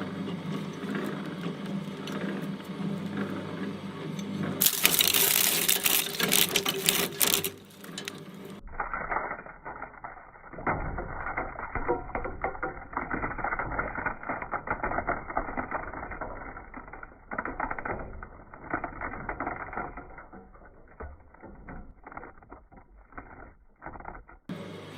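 Electric shredder running with a steady motor hum, crunching and clicking rapidly as play dough is fed through its cutters. Part way through the sound becomes duller, with a dense run of small clicks.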